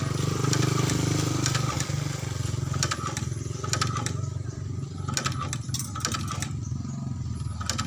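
Motor-driven shoe-sole stitching machine running steadily, a low hum with rapid pulsing and scattered sharp clicks.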